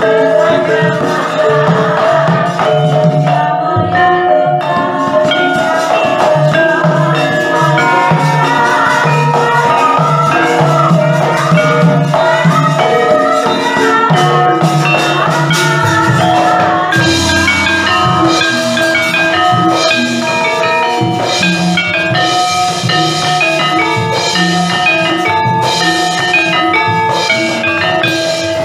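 Javanese gamelan ensemble playing wayang accompaniment: struck bronze metallophones and pot gongs ringing over a low pulse, with jingling metal percussion. About two-thirds of the way through the playing gets busier, with more high struck notes.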